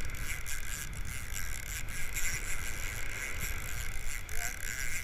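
Wind buffeting the microphone over surf washing up the beach: an uneven low rumble under a steady hiss.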